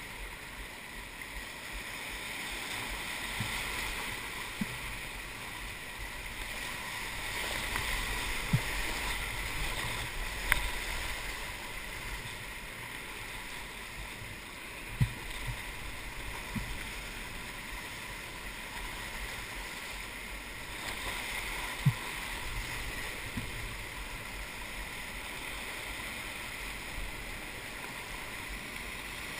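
Rushing whitewater of a big rapid at high flow (3600 CFS), heard from a kayak running through it, with water splashing over the camera. Now and then a short, sharp knock.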